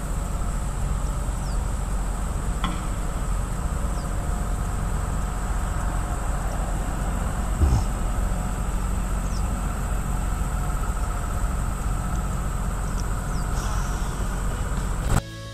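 Steady evening insect chorus of crickets, over a low rumble, with one dull thump about halfway through. Music starts right at the end.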